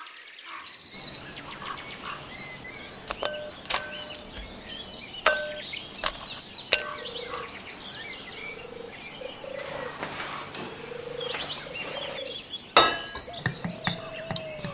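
Birds chirping in the background, with several sharp clinks of kitchen work through the first half and a louder knock near the end, over a faint steady low hum.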